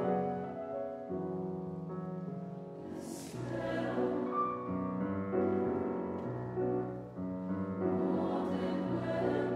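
Mixed choir singing sustained chords with grand piano accompaniment, the harmony shifting every second or so. A brief hiss comes about three seconds in.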